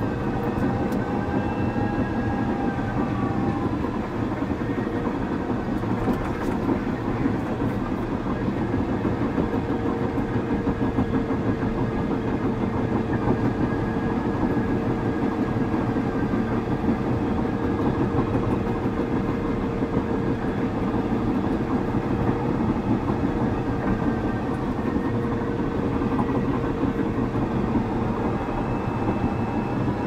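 Caterpillar D6 bulldozer travelling, its diesel engine running steadily under the clatter of its steel tracks, with a steady whine over it.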